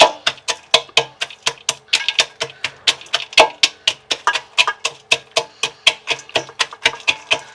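Small kitchen crusher pounding roasted makhana (fox nuts) into coarse pieces: a steady run of sharp knocks, about four or five a second.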